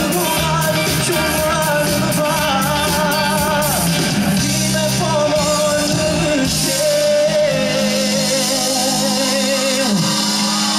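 A male lead singer singing live with a pop-rock band of electric guitar, keyboards, bass and drums, his voice wavering with vibrato. About six and a half seconds in the drums and bass drop out, leaving the voice over sustained chords.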